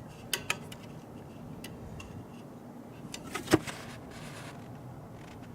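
Handling of the feeder's plastic parts: two sharp clicks near the start, a few faint ticks, and one louder knock a little past halfway.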